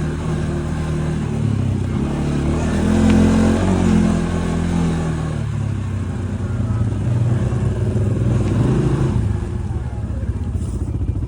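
Quad bike (ATV) engine running: the pitch rises under throttle about two to four seconds in, falls back, then settles lower and more uneven near the end.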